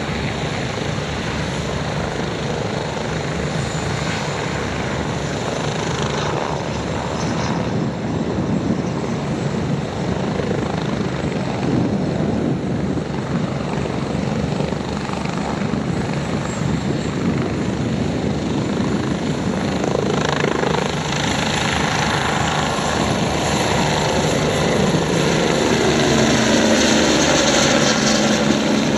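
UH-72 Lakota twin-turbine helicopter hovering just off the ground, its main rotor and turbines running in a steady loud wash, then lifting away and climbing overhead, growing louder in the last third.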